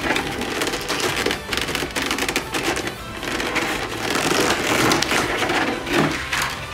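Clear plastic packaging crinkling and crackling as it is handled: the figure's plastic bag and the thin plastic blister trays being moved and pulled apart.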